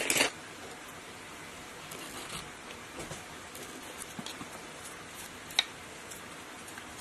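Quiet handling noises while work goes on inside a pump's metal motor casing: a short rustling burst at the start, then faint scattered rustles and ticks, and one sharp metallic tap with a brief ring about five and a half seconds in, as the metal tool knocks against the casing.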